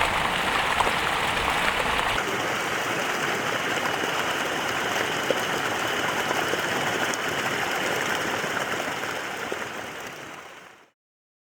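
Steady rushing of running water, its tone shifting slightly about two seconds in, then fading out to silence near the end.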